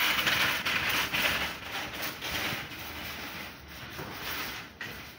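A rustling, crackling hiss, loudest in the first second and a half and then fading.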